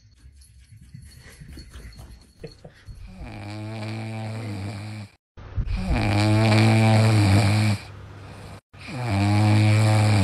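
French bulldog puppy snoring in its sleep: three long, loud snores of about two seconds each, with a low droning pitch.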